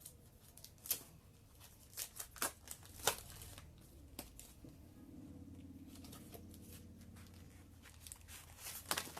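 Packaging of a pack of paper cards being torn open and handled: scattered crinkles and sharp ticks, with a faint low hum from about the middle until near the end.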